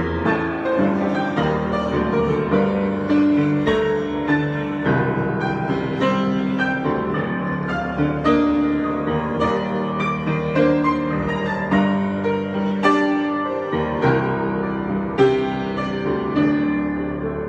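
Solo piano improvisation: flowing chords and melody with sustained, overlapping notes and a steady stream of new note attacks.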